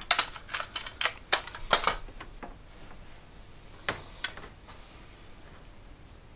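Sherwood cassette deck's mechanism and front buttons clicking and clacking as they are worked by hand with a cassette in the tape well: a quick run of sharp clicks, then two more about four seconds in.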